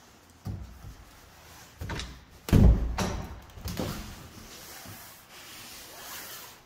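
Interior bathroom door being opened by its knob: a handful of knocks and latch clicks, the loudest about two and a half seconds in, followed by a few seconds of soft rubbing noise.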